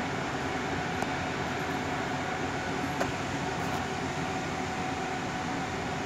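Handheld electric air blower running steadily, blowing dust out of a heating fan's housing: an even rush of air with a faint steady tone over it, and a sharp click about three seconds in.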